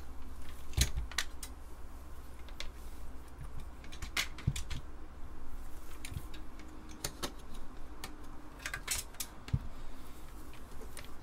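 Scattered clicks and light clatter of handling on a workbench: a Disk II drive's metal chassis being turned and set down, and multimeter test leads being moved about. A steady low hum runs underneath.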